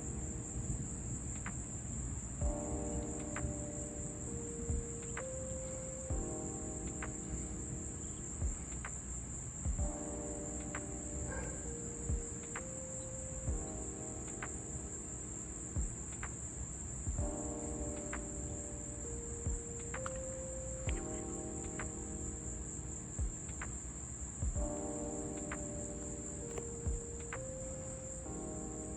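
Crickets chirring in a steady, unbroken high-pitched chorus. Beneath them, a low rumble, scattered faint clicks, and a pattern of held low tones that changes every few seconds and repeats.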